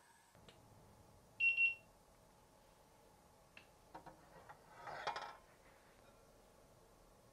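A short electronic beep, one steady high tone about one and a half seconds in, typical of a kitchen appliance signalling, followed around five seconds in by a few light clicks and a brief rustle of kitchenware being handled.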